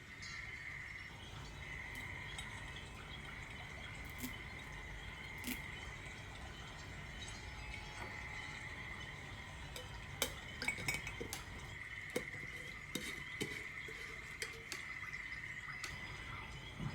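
Scattered light clinks and taps of small containers and ingredients being handled, busiest in the second half, over a steady high-pitched hum.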